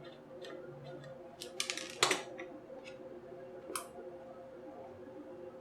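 Sharp clicks and a short clatter of the small plastic parts of a JBL Flip 2 speaker being worked loose by hand during a teardown. The loudest click comes about two seconds in and another near the four-second mark, over a faint steady hum.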